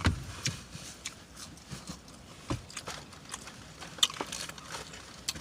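Close-up eating sounds: a person chewing with mouth smacking, a scatter of short wet clicks and crunches, with a low thump at the very start.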